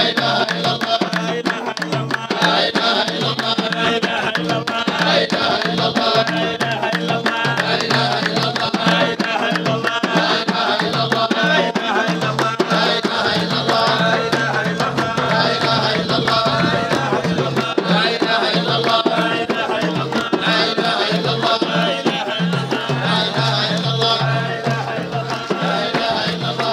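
Drums beating a steady rhythm under a group chanting together, the chant phrase recurring every couple of seconds, as in a Sufi dhikr procession.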